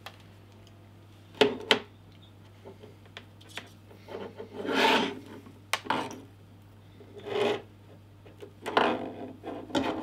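An Ethernet cable and its RJ45 plugs being handled. Two sharp plastic clicks come about a second and a half in, then a few short rubbing, scraping noises as the cable is worked with both hands.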